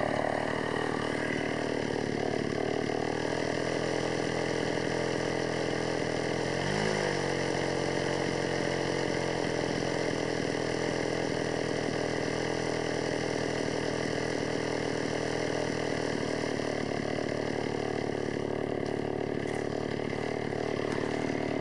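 Stihl 440 two-stroke chainsaw idling steadily after milling, letting the engine cool before shutdown. About seven seconds in, its pitch briefly rises and falls once.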